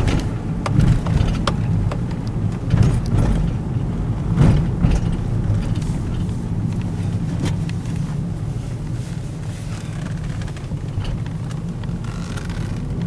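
Car driving along a road, heard from inside the cabin: a steady low engine and road hum, with scattered small knocks and rattles.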